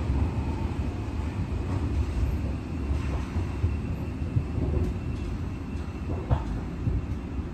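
Cabin running sound of a Tokyo Metro 17000-series subway car slowing as it pulls into a station: a steady low rumble of wheels on rail with a few faint clicks, easing off slightly near the end.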